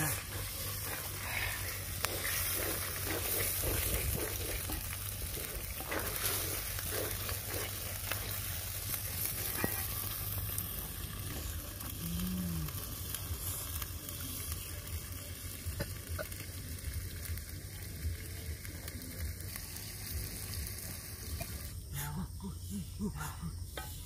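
Food sizzling in hot oil in a pan, steady throughout with small crackles, as it is stirred.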